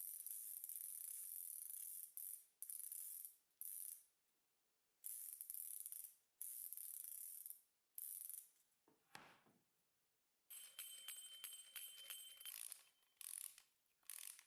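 Repeated bursts of high, hissy rustling noise, each one to two seconds long with short pauses between them, and a quick run of clicks about ten seconds in. The noises are made close to the cats, and they set off their lip-licking.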